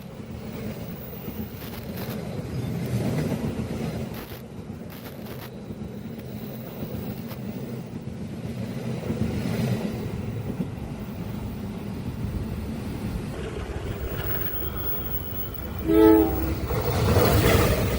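A train rumbles steadily along the track. About 16 seconds in, the locomotive gives one short, loud horn blast, and then a louder rush follows as the train passes close.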